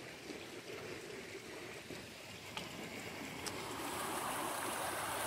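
Swollen, muddy creek rushing past the bank after a flash flood. The water grows louder near the end.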